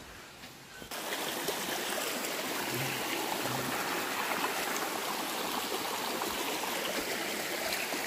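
Shallow rocky stream running over stones, a steady rush of water that starts suddenly about a second in, after a quiet moment.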